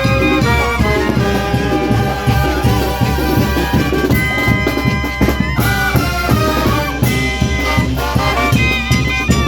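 Brass band (banda) playing a Latin dance tune: brass melody over a steady low beat.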